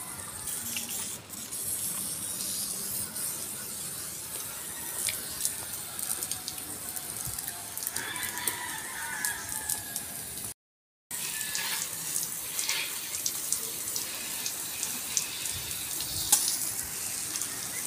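Water spraying from a garden hose nozzle onto a window frame and glass: a steady hiss with small splashes and drips. It breaks off for about half a second a little past the middle.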